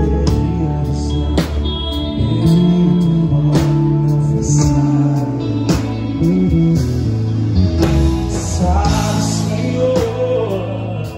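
Live gospel rock band playing a passage with no lyrics: electric guitar, bass, keyboard and drum kit, with heavy drum hits about every two seconds.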